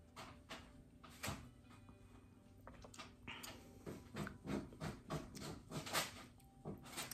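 A person drinking a milky cocktail from a glass: faint handling clicks, then a run of short, soft gulps in the second half.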